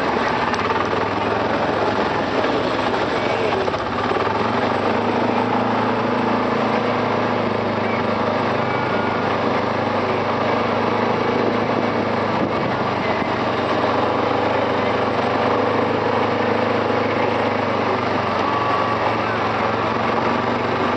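Arctic Cat 700 TRV ATV's single-cylinder engine running steadily as the quad is ridden at low speed.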